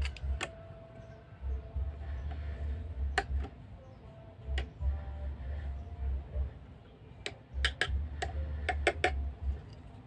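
Scattered sharp clicks and taps of hands handling stiff electrical wires and a tester screwdriver, with a quick cluster of clicks near the end, over a low rumble that comes and goes.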